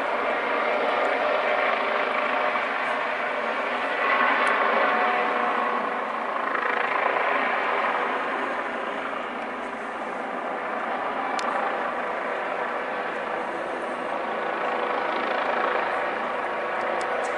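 Eurocopter EC135 helicopter hovering low, a steady turbine whine over dense rotor noise that swells louder about four seconds in and again around seven seconds, then eases off.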